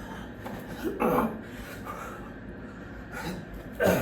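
A man breathing hard from the exertion of burpees: two loud, short breaths, one about a second in and one near the end, with a fainter one between.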